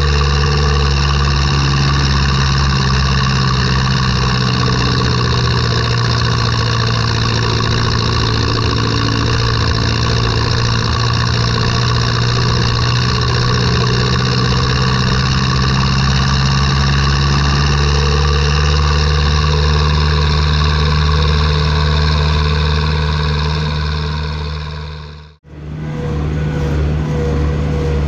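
Farm tractor's diesel engine running steadily as the tractor drives along the road. The sound breaks off for an instant about 25 seconds in, then the engine is heard again.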